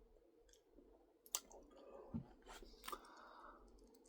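Faint close-up mouth sounds of a person chewing a cold, unheated Lunchables pizza, with scattered wet clicks and smacks.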